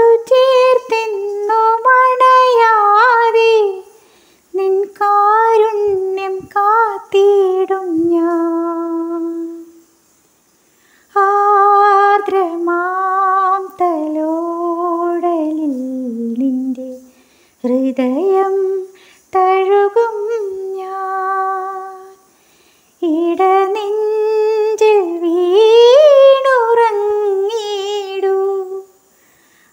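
A woman singing a melody without accompaniment, in phrases of a few seconds separated by short pauses, with wavering held notes.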